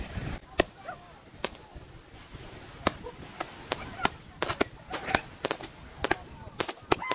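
Handheld multi-shot firework going off, each shot leaving with a sharp crack. The cracks are sparse at first and come faster and closer together in the second half.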